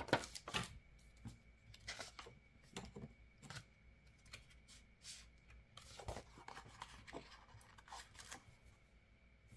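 Paper sticker sheets being leafed through and handled: faint, scattered rustles and crinkles.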